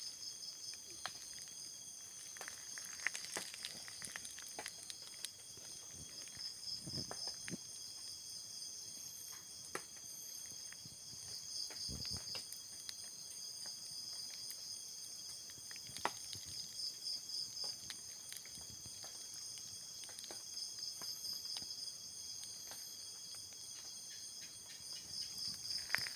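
Chorus of night insects: several steady high-pitched trills layered together, one of them pulsing in rapid beats that swell and fade every few seconds, with scattered faint ticks.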